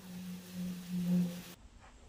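Small electric screwdriver motor whirring as it drives screws into a metal mount plate. Its pitch sags under load just after a second in, and it stops abruptly about a second and a half in.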